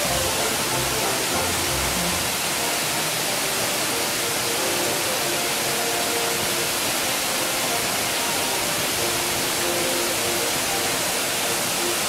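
Waterfall rushing steadily onto rock and pool, with faint music underneath.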